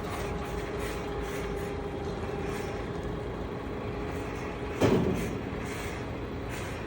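Heavy machine engine running steadily with a held hum, and one loud clunk about five seconds in that rings briefly.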